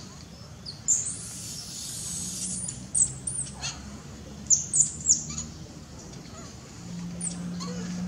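Short, very high-pitched chirping calls, each a quick falling sweep, about seven in all, in small clusters roughly a second, three seconds, five seconds and seven seconds in. A low steady hum runs under them.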